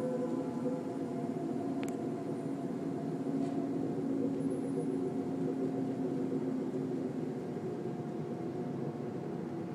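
A steady, low droning hum made of several held tones, the kind of unexplained noise from the sky reported as 'sky trumpets' or a skyquake hum. A single faint click about two seconds in.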